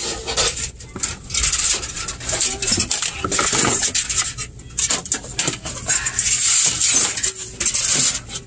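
Metal defrost heater tube sliding along the back of a freezer's evaporator coil, irregular metallic scraping and clinking against the fins and brackets as it is pushed into place.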